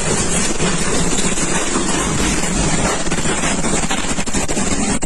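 Tornado winds rushing hard over the microphone in a steady, loud noise.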